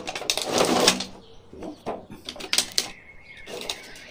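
Plastic blister packaging and cardboard box of an action-figure set being handled during unboxing: a loud crinkling rustle in the first second, then scattered sharp plastic clicks and taps.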